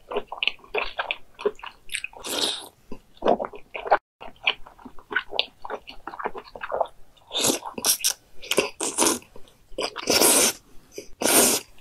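Close-miked mouth sounds of eating a giant raw oyster: wet slurping and sucking as the oyster is drawn off the shell, with many short chewing smacks. Longer, louder slurps come about two seconds in and twice near the end.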